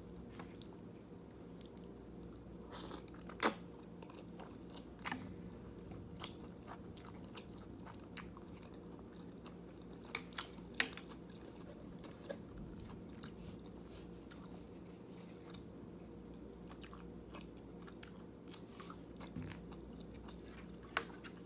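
Close-up eating sounds: chewing and wet mouth clicks from a mouthful of jjajangmyeon, thick wheat noodles in black bean sauce, with scattered sharper smacks, the loudest about three and a half seconds in.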